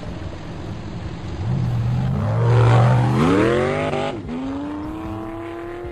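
A vehicle engine accelerating: its note holds steady, then climbs for about a second, drops suddenly at a gear change about four seconds in, and climbs again more slowly.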